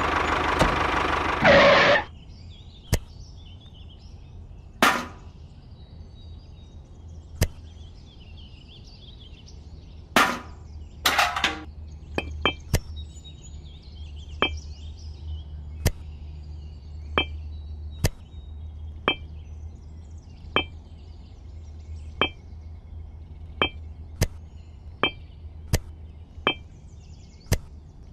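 A model tractor's engine sound runs for the first two seconds and cuts off. After that come a few knocks and a longer scrape as small sand-filled buckets are set into the trolley. Then sharp clicks, about one a second, as miniature bricks are placed one by one into the small red metal trolley.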